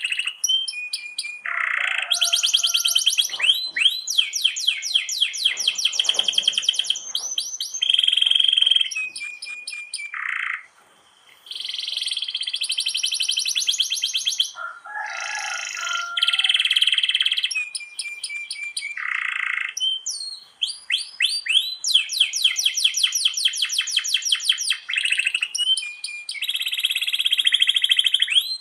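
Domestic canary singing a long, unbroken song of fast trills and drawn-out rolls, the phrases following one another with only short pauses, one brief gap about ten seconds in.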